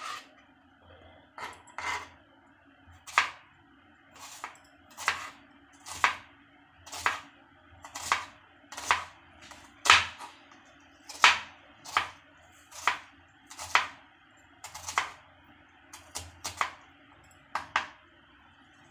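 Kitchen knife chopping red onion on a wooden cutting board: a sharp knock of the blade against the board about once a second, in an uneven rhythm.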